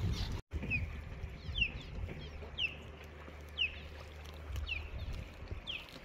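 Osprey calling: a series of short, high whistled chirps, each falling in pitch, about one a second. A low rumble runs underneath, and the sound cuts out briefly about half a second in.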